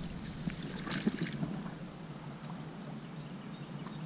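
Rustling and light crackling of dry grass and twigs as someone moves through brush at the water's edge, over a low steady rumble.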